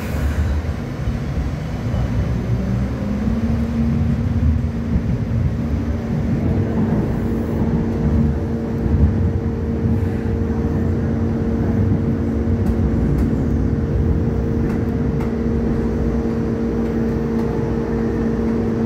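Hong Kong Light Rail Phase III car heard from on board while running, a steady low rumble of wheels on track. A steady hum comes in a few seconds in and holds.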